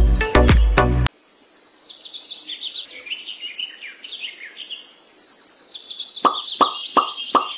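Music cuts off about a second in, leaving birds chirping rapidly. Near the end come five quick knocks, about three a second, as miniature clay bricks are set down.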